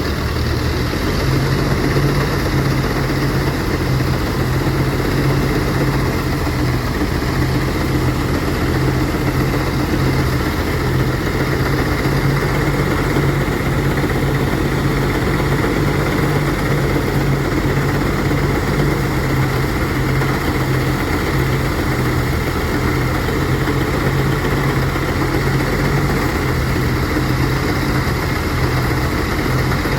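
Engine-driven rice threshing machine running steadily at a constant speed, a loud even mechanical drone.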